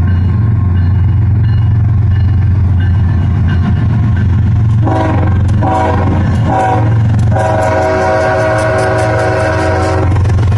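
Diesel freight locomotive sounding its multi-chime air horn: three short blasts about half a second apart, then one long blast of nearly three seconds, over the steady low running of the locomotive's diesel engine.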